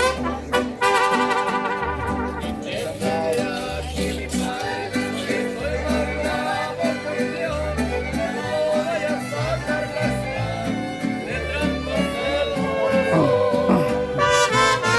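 Norteño band playing an instrumental passage between sung verses of a corrido: bass notes on a steady beat under a sustained lead melody.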